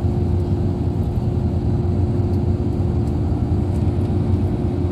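Steady low rumble of a long-distance bus's engine and tyres, heard from inside the cabin, with a constant hum running through it.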